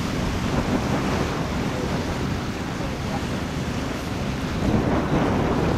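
Wind buffeting the microphone over the rush of sea water, growing louder near the end.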